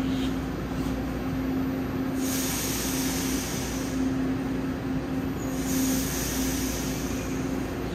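Taiwan Railway EMU900 electric multiple unit standing at the platform with its equipment running, giving a steady, slightly pulsing hum. Two bursts of air hiss come through, one about two seconds in and one a little past the middle, each lasting a second or so.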